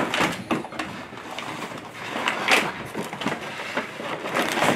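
Cardboard box and packaging rustling and scraping as a boxed plastic dollhouse is slid out, with a few sharp knocks from the handling.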